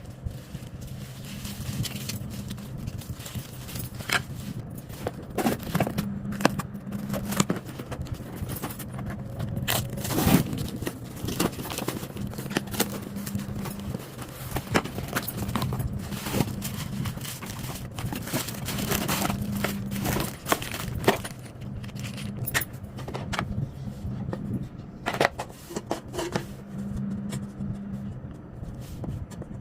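Irregular clicks, knocks and scrapes of packaging and parts being handled during unboxing, over a steady low hum.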